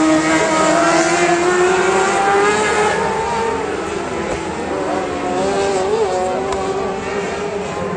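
Several racing engines running at once, revving up and down so that their pitches rise and fall, growing slightly fainter from about three seconds in.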